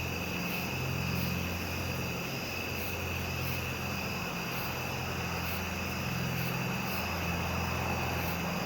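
A low, steady engine-like drone from an unseen aircraft overhead, swelling and fading slightly, which the listener describes as rumbling. Insects call steadily in the background.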